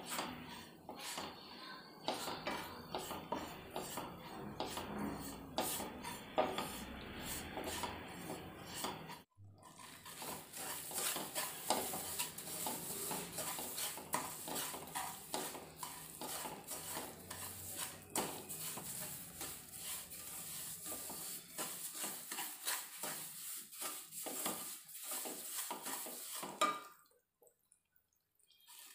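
Wooden spatula scraping and stirring semolina roasting in ghee in a stainless steel kadhai, a steady run of scrapes against the metal. It breaks off briefly about nine seconds in and stops for a moment near the end.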